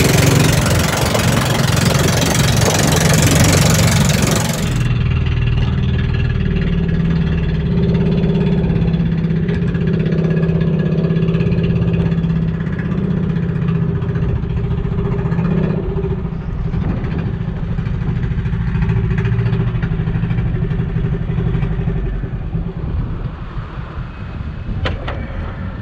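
Engine of a motorised outrigger boat (bangka) running at a steady pitch, with wind hiss over it for the first few seconds. It eases off over the last few seconds as the boat nears the beach, and there is a single sharp knock near the end.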